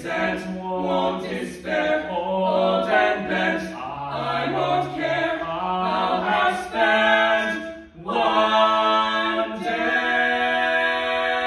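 Male vocal quartet singing a cappella in close harmony, the voices moving through several chords before a short break about eight seconds in, then holding one long chord.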